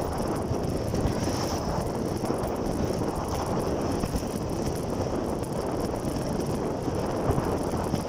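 Steady wind rushing over the microphone while riding a motorcycle, with a dull rumble of road and riding noise underneath.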